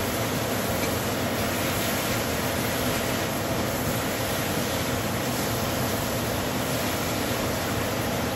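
Onions, roast duck and char siu sizzling steadily in a hot wok as they are stir-fried.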